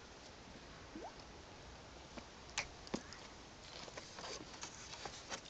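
Faint scattered pops and small splashes of fish taking bread at the pond surface, with a couple of sharper ones in the middle and more of them toward the end.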